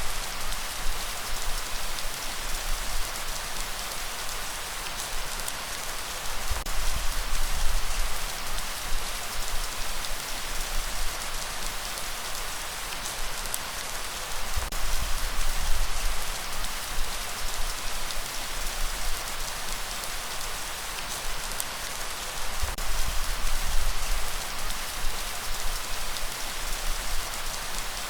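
Steady light rain falling, a dense even hiss with scattered drops ticking on a surface. Underneath, a low rumble of breeze swells and fades every few seconds.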